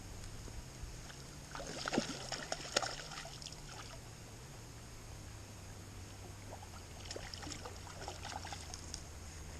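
A hooked rainbow trout splashing and thrashing at the water's surface while it fights, in two bursts of sharp splashes, one about two seconds in and another about seven seconds in, over a steady low rumble.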